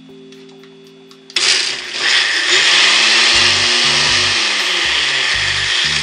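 Countertop blender switching on about a second and a half in and running steadily, grinding cilantro leaves, lime juice and oil into a thick sauce in a small blender jar.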